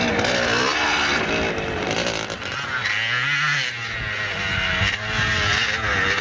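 Motocross dirt bikes racing past, their engines revving, the pitch climbing and falling repeatedly as the riders work the throttle, with more than one engine heard at once.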